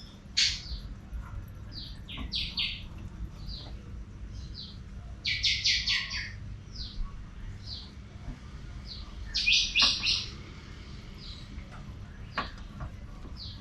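Small birds chirping repeatedly, with quick runs of chirps twice. A few faint sharp clicks come from the Suzuki Cultus's rear suspension, the 'kadak kadak' noise that has started on the new car.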